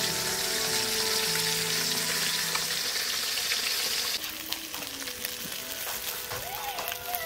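Fish pieces deep-frying in hot oil in a wok, a steady sizzle that drops to a lower level about four seconds in.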